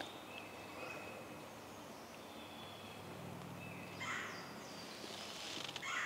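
Owl hooting faintly in woodland, with thin high songbird calls around it. Brief rustles about four seconds in and again at the end.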